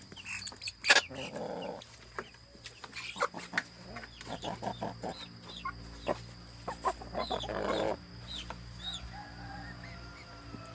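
Bangkok game chickens clucking and giving short calls in their coop, with scattered short clicks and taps.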